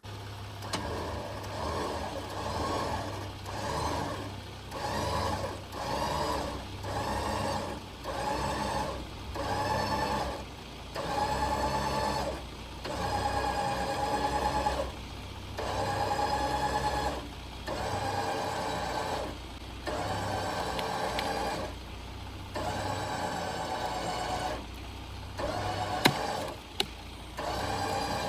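A small motor revving in repeated bursts, short ones about once a second at first and then longer runs with brief pauses between. Two sharp clicks near the end.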